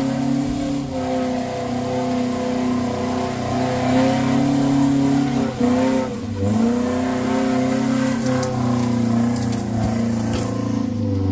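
Small 4x4 off-roader's engine revving hard under load on a slippery climb. The revs hold high, sag briefly about halfway through and pick up again, with a few sharp knocks near the end.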